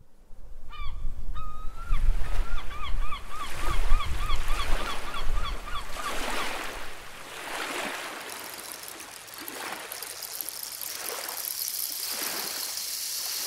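Gull calling: one long call, then a rapid run of short yelping calls, about three or four a second, over a low rumble. After about six seconds the calls stop and surf washes in and out every second or two.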